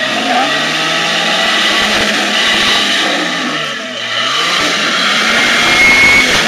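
A lifted 4x4 SUV's engine revving under load as it climbs a rock ledge; the engine pitch sags to a low point about four seconds in, then climbs again.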